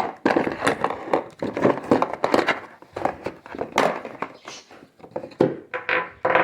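Small metal parts and hand tools (screws, wrenches, lathe feet) being handled and set down, with a quick run of clinks and knocks mixed with rustling of their packaging.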